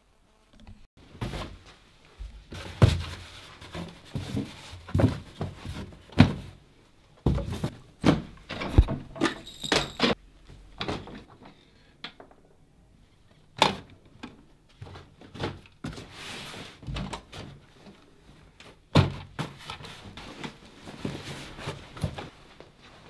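Toys being tossed and dropped into a cardboard box: a run of irregular thuds, knocks and rattles with rustling between them, and a few sharper knocks among them.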